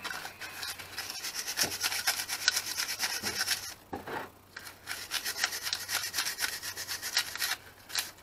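Rapid back-and-forth scrubbing of a small greasy metal part with a scourer, in two runs of quick strokes with a brief pause about four seconds in.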